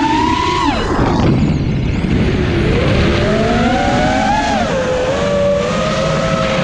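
FPV quadcopter's brushless motors whining as the throttle changes. The pitch drops sharply about a second in, climbs back from about three seconds with a brief wobble, then holds steady, over a steady rushing noise.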